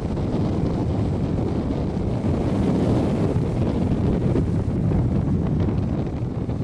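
Wind buffeting the microphone in a steady low rumble, over the wash of ocean waves breaking on rock ledges.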